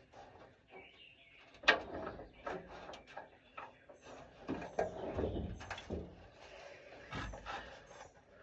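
Spark plug socket and extension knocking and clinking against metal while a new plug is worked into a tight, unseen spark plug hole. There is a sharp knock about two seconds in and a run of heavier knocks and scrapes in the middle.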